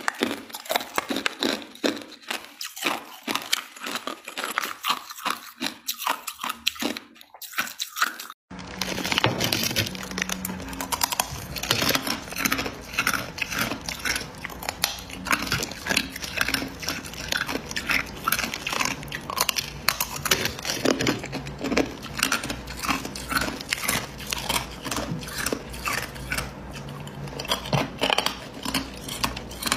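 Ice being bitten and chewed close to the microphone: hard clear ice cubes cracking between the teeth in sharp, separate crunches. About eight seconds in it switches to frosty crushed ice chewed in dense, rapid crunches.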